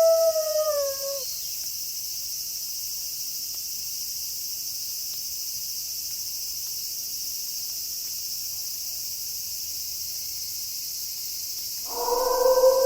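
A wolf howl trails off with a falling pitch, leaving a steady high chirring of night insects such as crickets. Near the end, another long, steady wolf howl begins.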